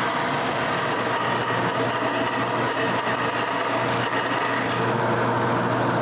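Wood lathe running with a steady hum while a parting tool cuts into the spinning wooden post, giving a continuous scraping.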